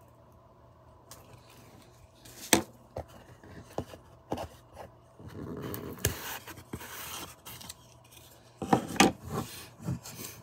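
Scraping and rubbing on a wooden cigar box as its sealed lid is worked open, with sharp wooden clicks and knocks. The loudest knocks come in a cluster near the end.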